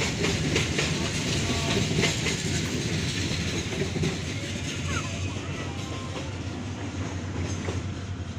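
Coal train's freight wagons rolling past, a steady rumble with the wheels clicking and clacking over the rail joints. It eases off a little in the second half as the last wagons go by.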